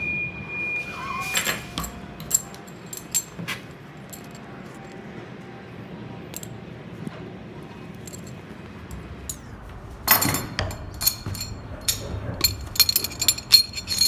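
Hand crimpers working a 3/16-inch ferrule onto stainless steel wire rope: a few sharp metal clicks in the first seconds, then a louder scrape about ten seconds in and a quick run of metallic clinks near the end.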